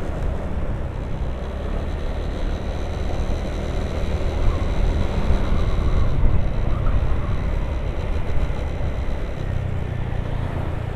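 Honda Vario 150 scooter being ridden along a road: its engine runs under a steady, heavy low rumble of wind and road noise, with a thin steady high tone above it.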